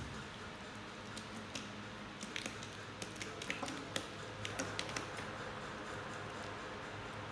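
Close handling noise: a run of small, irregular crisp clicks and crackles, thickest from about one to five seconds in, over a faint steady hum.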